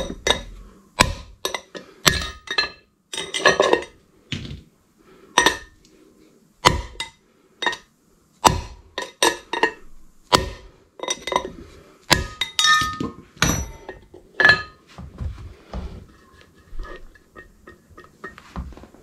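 Hammer blows ringing on steel, driving a wheel-bearing race into a GMC Sierra 3500 dually's rear hub: a run of sharp, irregular metallic strikes that turn to lighter, fainter taps near the end. The race is not yet fully seated in the hub.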